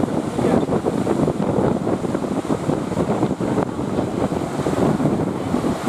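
Steady wind noise buffeting the microphone over the sound of sea surf.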